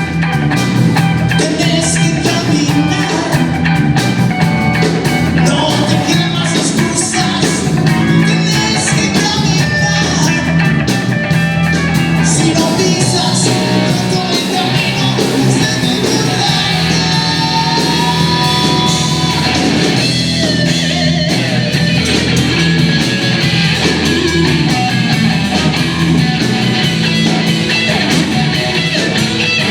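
Blues-rock band playing loudly and continuously, with singing over electric guitar, bass and drums.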